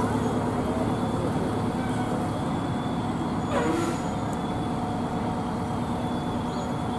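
Fire apparatus and trucks driving slowly past in a parade line, their engines running at a steady low hum. A brief falling chirp comes about halfway through.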